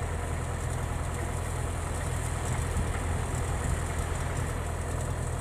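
Kubota DC-105X combine harvester's diesel engine running steadily, a constant low hum with an even mechanical hiss over it.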